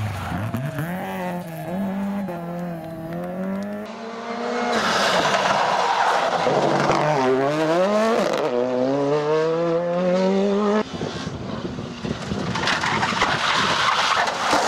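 Rally cars, Honda Civics and a Ford Fiesta, driven flat out on a tarmac stage. The engines rev high and drop sharply through gear changes and lifts, and the tyres slide and scrabble through the corners. About 5 s in it gets louder, and about 11 s in the engine note gives way to a rushing noise.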